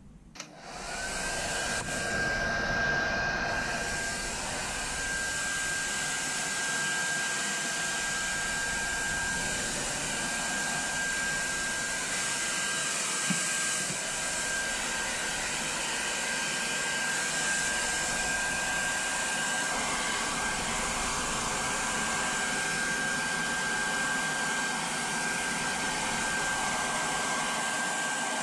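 Handheld hair dryer switching on about half a second in, its motor whine rising quickly to a steady pitch, then blowing steadily with a strong rush of air onto a wet dog's coat.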